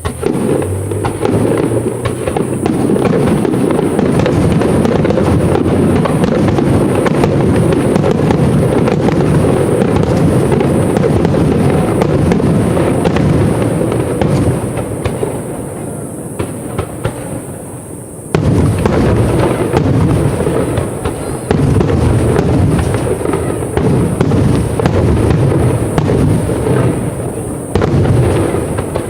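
Fireworks display: a dense barrage of aerial shells bursting in rapid, overlapping succession with crackling. The barrage thins for a few seconds about two-thirds of the way through, then comes back loud and sudden.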